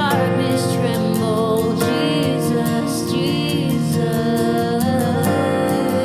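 Worship band music with a steady beat, acoustic guitar and a wordless sung line.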